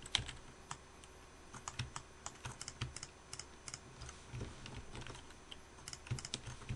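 Computer keyboard keys and mouse buttons clicking faintly in irregular taps, several a second, as shortcut keys are pressed and faces are selected with the mouse.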